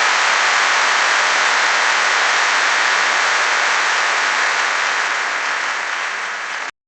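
Large crowd applauding heavily in a dense, steady wash of clapping, with cheering mixed in. It eases a little toward the end and then cuts off abruptly.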